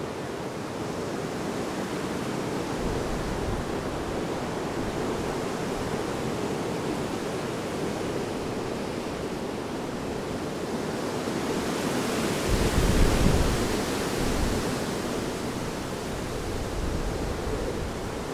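Lingering hurricane wind blowing steadily, swelling into a stronger gust about two thirds of the way through, with a low buffeting rumble on the microphone.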